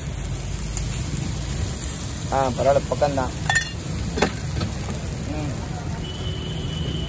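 Dosa and beef gravy sizzling steadily on a hot flat iron griddle, with two sharp clicks a little past the middle and a brief voice calling out just before them.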